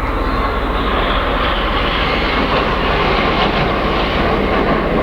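Red Arrows' BAE Hawk T1 jets passing overhead in a display: a steady, loud rush of jet noise with no distinct pitch.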